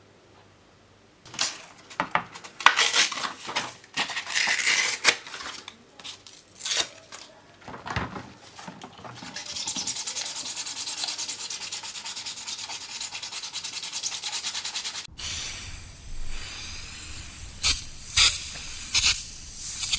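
Sanding a 3D-printed figure by hand: irregular scratchy strokes at first, then a stretch of steady continuous scrubbing, then more separate strokes near the end.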